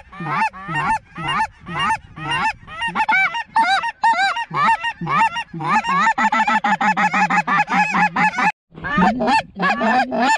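Snow geese calling: a loud, dense chorus of high yelping honks, several a second, crowding together in the second half with a brief gap near the end.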